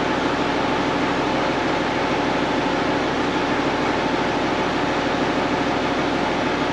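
Case 1070 tractor's engine running steadily.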